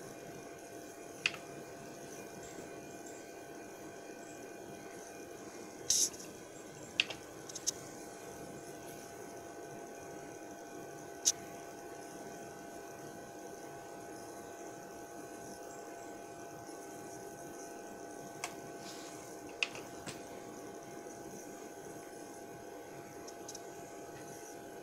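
Canon C5535 copier humming steadily from its fans and electronics, with a handful of sharp clicks from keys being pressed on its control panel, the loudest about six and eleven seconds in.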